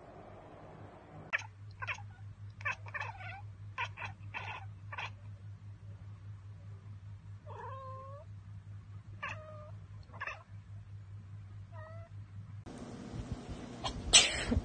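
A cat chattering: a run of quick, clipped 'ek-ek-ek' calls, then a few short chirping calls that bend in pitch. This is the sound a cat typically makes when it spots prey it cannot get to. Near the end a louder background comes in, with one sharp, loud sound.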